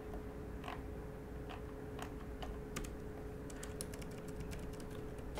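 Computer keyboard keys clicking: a few scattered keystrokes, then a quicker run of typing near the end, over a faint steady hum.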